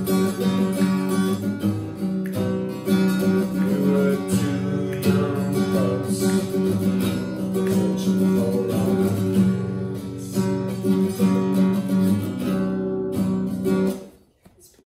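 Background music played on acoustic guitar, plucked and strummed, which ends abruptly near the end.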